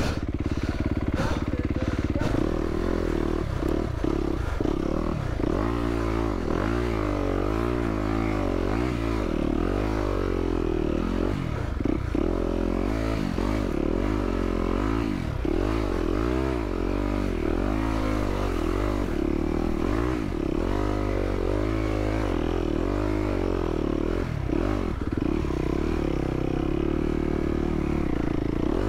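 Yamaha YZ250F four-stroke single-cylinder dirt bike engine being worked on and off the throttle, its pitch rising and falling about once a second, heard from a mic inside the rider's helmet.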